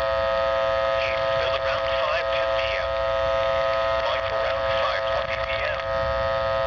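Weather-radio receiver on a poor signal: a stack of steady whining interference tones with a garbled, distorted broadcast voice breaking through underneath.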